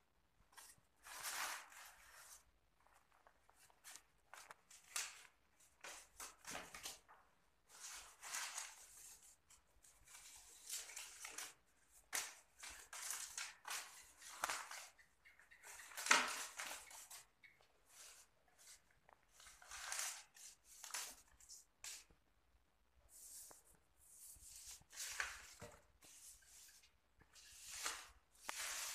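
Paper banknotes rustling and crinkling in irregular bursts as a hand rummages through a pile of them in a cardboard box.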